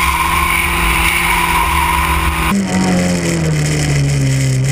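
Onboard sound of a front-wheel-drive VW Polo race car's engine running steadily at high revs, with strong wind and road noise. About two and a half seconds in, the sound cuts to inside the cabin, where the engine revs fall steadily.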